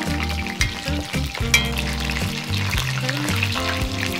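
Battered pieces deep-frying in hot oil in a cast-iron wok: a steady crackling sizzle, with tongs stirring and lifting the pieces. Background music with steady low notes plays underneath.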